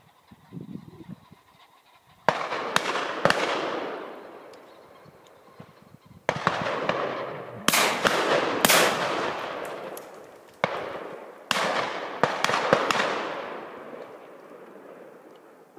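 Several shotguns firing at driven pheasants, the shots coming in three bursts, each crack followed by a long rolling echo off the valley sides.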